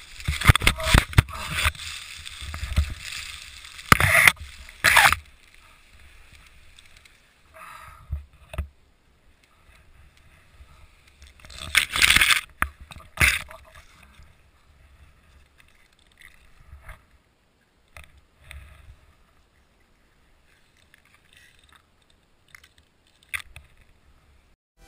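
A paraglider crashing down through snow-laden conifer branches: loud rustling and scraping of branches across the helmet camera with sharp snaps and knocks through the first five seconds, a second loud burst about twelve seconds in, then only scattered rustles and knocks.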